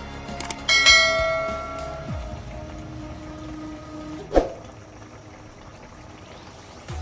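A couple of quick clicks, then a bright bell chime that rings out and slowly fades: a subscribe-button sound effect. A short sharp knock sounds about four seconds in.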